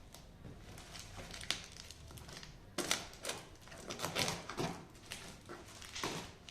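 Cardboard monitor box being opened and its packing handled: a string of short scrapes, rustles and knocks, loudest around the middle.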